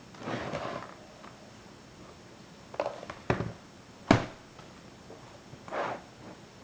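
Laptop parts and tools being handled during disassembly: a short scrape, then three sharp clicks and knocks on plastic and metal (the loudest about four seconds in), then another brief scrape near the end.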